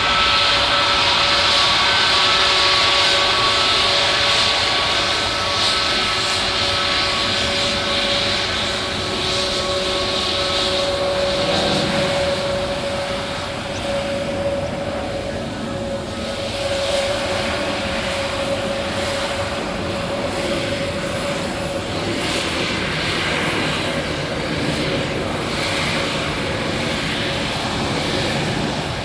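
Airbus A321neo's twin Pratt & Whitney geared turbofan engines running at low power as the airliner rolls along the ground: a steady engine whine with a strong high hiss that fades off about halfway through.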